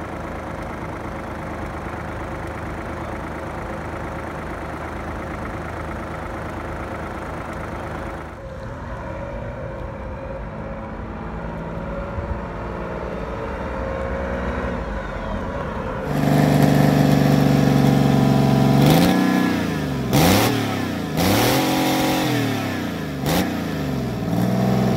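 Achates Power three-cylinder opposed-piston engine running steadily, then the pickup it powers driving off. About sixteen seconds in, a much louder Commer TS3 "Knocker" three-cylinder two-stroke opposed-piston diesel is revved again and again, its pitch rising and falling with each blip.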